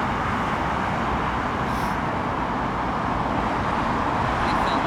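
Steady road traffic noise: a continuous rush of cars passing on a busy road, with no single vehicle standing out.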